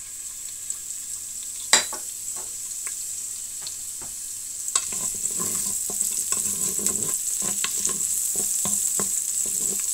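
Sliced onion frying in hot oil in a pot, sizzling steadily, the sizzle growing louder about halfway through. A sharp knock comes about two seconds in, and a utensil scrapes and taps in the pot as the onion is stirred.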